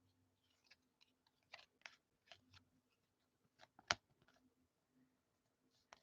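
Near silence broken by a few faint clicks of trading cards being handled, with one sharper click about four seconds in.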